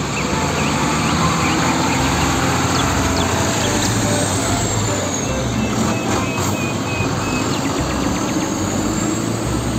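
Sinotruk Howo concrete mixer truck driving past in street traffic, its diesel engine running steadily under tyre and road noise.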